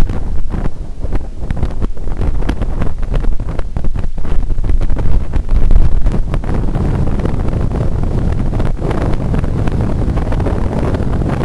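Strong wind buffeting the microphone: a loud, low, rumbling roar that gusts up and down throughout.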